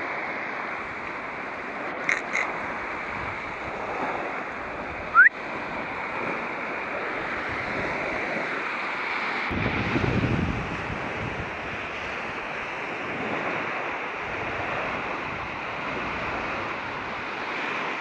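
Surf breaking and washing up on a sandy beach, with wind buffeting the microphone, heaviest about ten seconds in. A single short, high rising chirp sounds about five seconds in.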